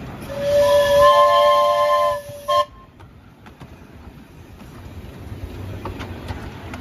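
Steam whistle of an Exmoor-built miniature steam locomotive: one long blast of about two seconds sounding several pitches together, then a brief second toot. The locomotive then runs on much more quietly.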